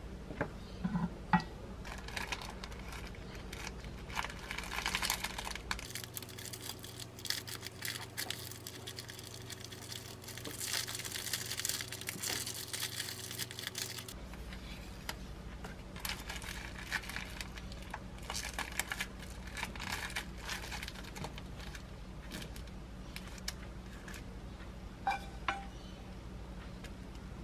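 Plastic film wrapper of a triangle kimbap kit crinkling in several bursts as it is folded around the rice ball, with a few light taps of utensils.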